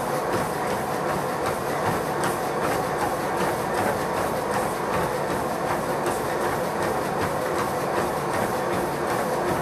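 Running footfalls striking a moving treadmill belt in a regular rhythm, over the steady running noise of the treadmill's motor and belt.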